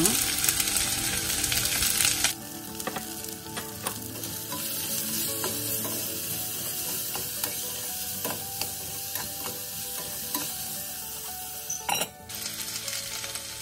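Ivy gourd pieces sizzling in oil in a steel kadai, loudly for the first couple of seconds. Then a spatula stirs and scrapes them, with scattered clicks against the pan. Near the end, the steel lid is set on with a clank.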